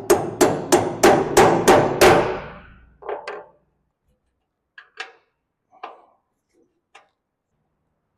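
Hammer tapping a bolt into the tight bolt holes of a tractor fender and platform: about eight quick strikes that trail off, in the first two seconds, then a few lighter knocks and clicks.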